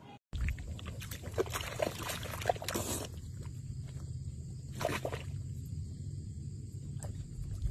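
A dog wallowing in a muddy puddle: wet mud squelching and sloshing in scattered bursts, mostly in the first few seconds and twice more later, over a steady low rumble.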